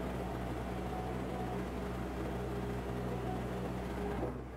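Yanmar ViO55 mini excavator's diesel engine running with a steady whine on top as the hydraulics work the raised arm. About four seconds in, the whine and extra load cut off suddenly, and the engine keeps running more quietly.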